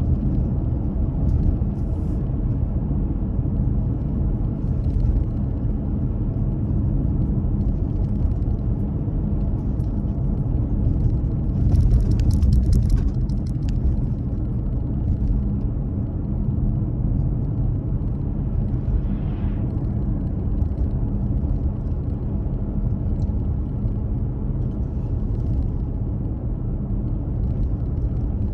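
Steady low rumble of a car on the road, engine and tyre noise, louder for a second or two about twelve seconds in.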